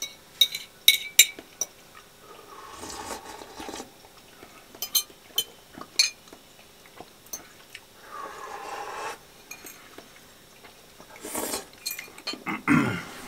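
A metal fork clinking and scraping against a frying pan while someone eats from it: several sharp clinks in the first couple of seconds, more around five to six seconds in, with softer scraping between. A louder shuffling noise comes near the end.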